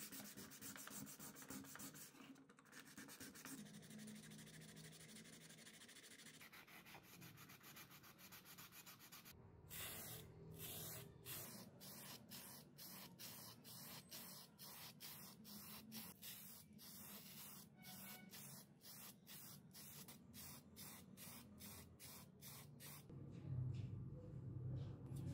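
Faint rhythmic rubbing strokes of wet sandpaper on a small plastic part. Near the end a low motor hum from a buffing wheel comes in.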